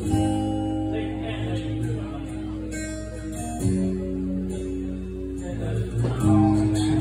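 Acoustic guitar strummed live with a man singing, the chords held and changing about every two to three seconds.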